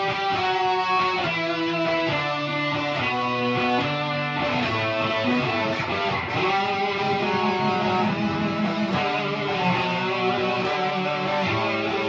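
Two electric guitars playing together, a melody of held notes that changes pitch every half second to a second over a steady level.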